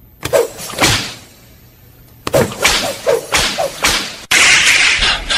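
Whoosh and whip sound effects played loud through the stage speakers: two sharp swishes, a pause, then a quick run of four, then a louder, denser rushing noise that cuts in about four seconds in.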